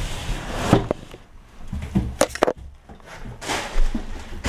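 Cardboard scraping and rustling as a boxed laptop is slid out of its cardboard shipping carton, with a few sharp knocks of box against box.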